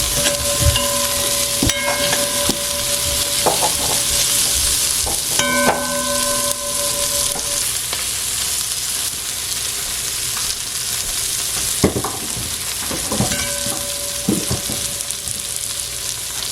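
Sliced okra sizzling in oil in a pot while being stirred in its last minutes of frying, with a steady hiss. A spoon scrapes and knocks against the pot, and three of the knocks leave a short ringing tone: at the start, about five seconds in, and past thirteen seconds.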